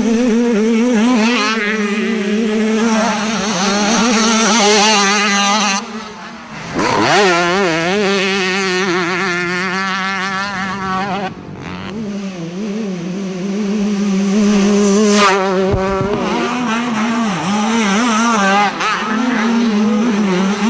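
Two-stroke motocross bike engines revving hard, the pitch rising and falling as the throttle is worked. The sound changes abruptly about six and twelve seconds in, where one clip is cut to the next.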